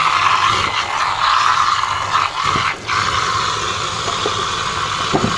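Kitchen tap running into a stainless-steel sink, a steady rush of water as hands rinse under the stream, briefly broken once near the middle.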